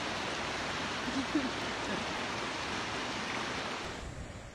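Swollen, flooded river rushing past in a steady, even wash of churning water, with a brief faint voice about a second in. The water sound drops away suddenly about four seconds in, leaving a quieter hiss.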